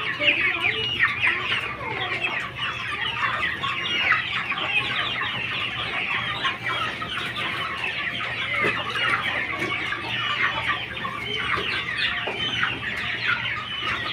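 A large flock of broiler chickens peeping and chirping all at once, a dense continuous chatter of many short high calls, with a steady low hum underneath.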